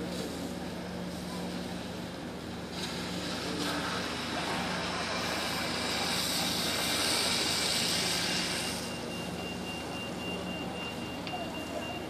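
Fire engine running steadily with a low hum, as its engine powers the aerial ladder and pumps. A loud hiss rises about three seconds in and falls away near nine seconds, and a thin steady high tone comes in after it.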